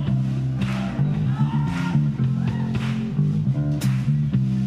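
Live funk band playing an instrumental groove: a plucked electric bass guitar line over drums, with sharp drum hits about once a second.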